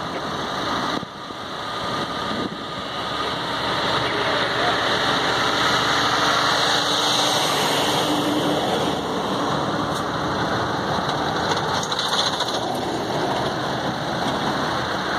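Oversize trucks hauling wind turbine blades passing close by: a steady rush of engine and tyre noise.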